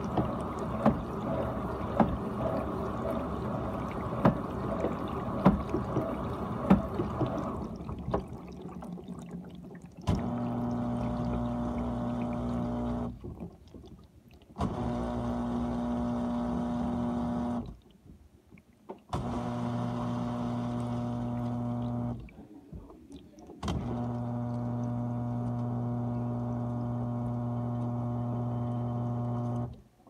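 GE dishwasher running through its cycle: water sloshing and spraying in the tub with sharp splashes, dying away about eight seconds in. Then a pump motor hums in four bursts of about three to six seconds each, with short pauses between them.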